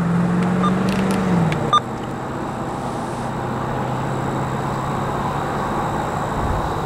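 Steady low drone of a diesel freight locomotive approaching in the distance, with a single sharp click a little under two seconds in.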